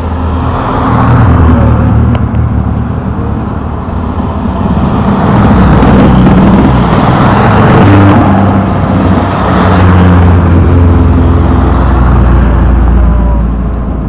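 Several cars climbing a mountain road one after another, their engines swelling as each comes past and fading away.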